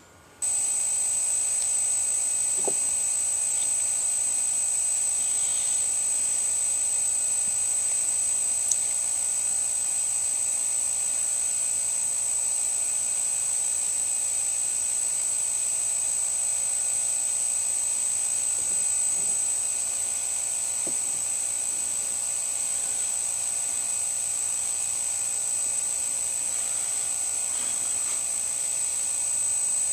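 A steady high-pitched electronic whine over a hiss, starting suddenly about half a second in, with a few faint clicks.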